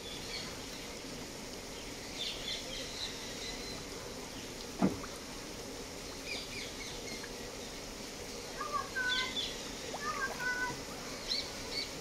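Scattered bird chirps and calls over a steady outdoor background hiss, with one sharp click about five seconds in.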